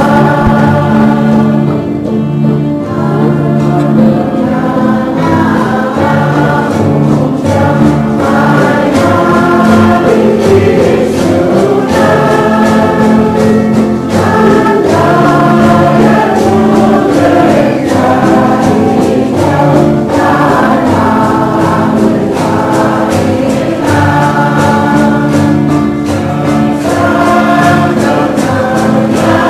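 A choir singing a church hymn in held chords that change every second or two, over a steady sustained low part.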